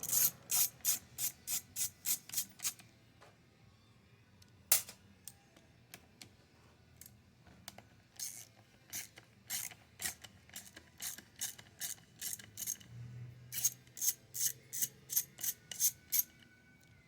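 Hand ratchet clicking in runs of about four clicks a second, with pauses between, as 8 mm nuts holding an air filter assembly and carburettor are backed off.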